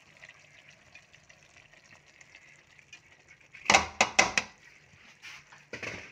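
Red plastic food container being handled over the pan. About four seconds in, a quick run of four sharp plastic clicks and knocks sounds over a faint hiss, with two softer knocks shortly after.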